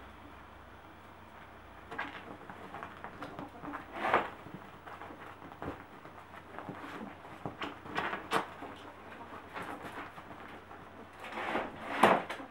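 Two ferrets playing and tussling on sofa cushions: scattered short bursts of scuffling and rustling on fabric, the loudest near the end.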